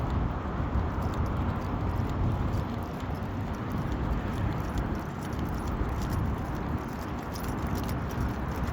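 Light metallic jingling and clinking of a dog's collar and leash hardware as the dog walks, over a steady low outdoor rumble.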